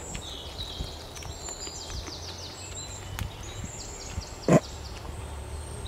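Forest birds calling in quick runs of high, rapid chirps, over a steady low outdoor hum. A single short thump about four and a half seconds in is the loudest sound.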